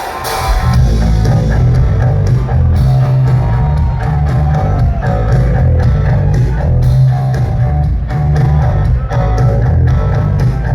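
A live rock band playing loud, with heavy bass, drums and guitar kicking in about half a second in.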